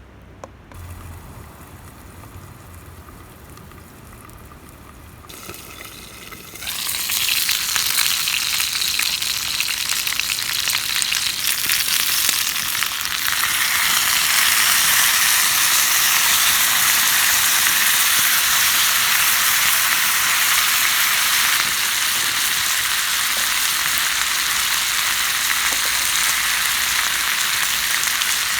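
Food sizzling and frying in a hot skillet over a campfire. The sizzle starts suddenly about six seconds in, grows louder, then holds as a steady hiss.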